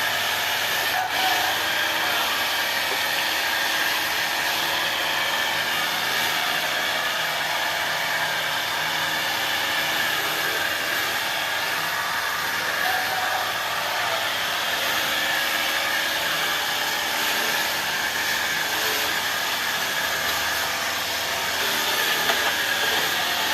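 Portable jet cleaner running steadily, its small pump motor whirring while water sprays through the wide 45-degree fan nozzle onto the motorcycle.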